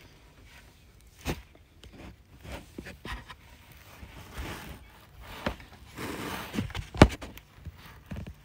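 Hands sliding and tapping on an open paperback book and the whiteboard beneath it: paper scraping and rustling with a few knocks, the sharpest about seven seconds in.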